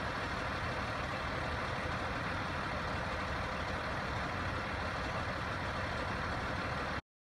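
A fire truck's engine running steadily with a low rumble, until the sound cuts off suddenly near the end.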